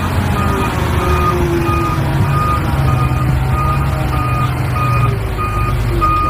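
Reversing alarm on a loaded Hyundai dump truck, beeping steadily about twice a second over the truck's engine running.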